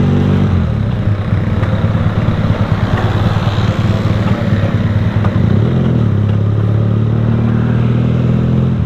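Motorcycle engine running on the road. Its steady note gives way to a rough rumble about half a second in, then comes back with a small rise in pitch a little before six seconds in and holds steady.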